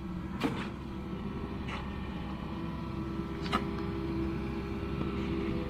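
Yanmar VIO55 mini excavator's diesel engine running steadily, with a hydraulic whine that strengthens in the middle and three sharp metal clanks from the machine working in the ditch.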